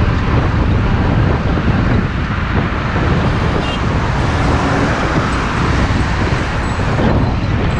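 Steady engine and road rumble of a moving bus, heard from on board, with some wind noise.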